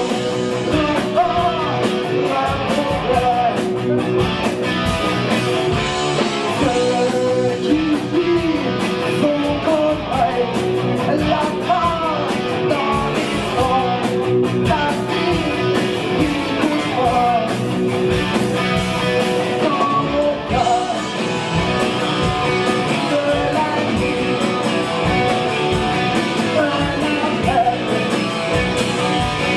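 Hard rock band playing live: electric guitars, bass and drums, with a singer's voice over them.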